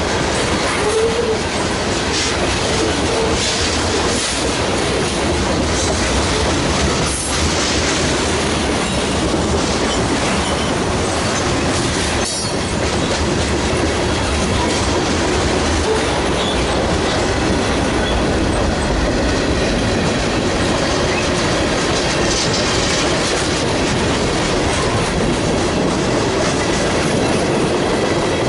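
Freight train of covered hopper cars rolling past at close range: steady rumble and clatter of steel wheels on the rails, clicking over the rail joints.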